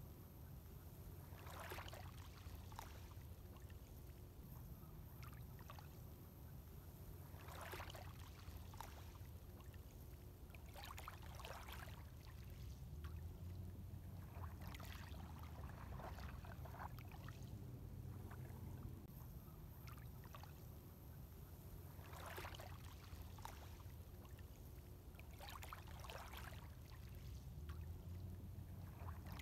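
Faint sea waves splashing and washing in irregular surges every couple of seconds, over a steady low rumble.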